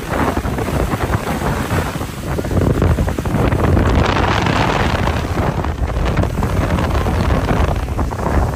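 Wind buffeting the microphone: a loud, gusting rumble and rush.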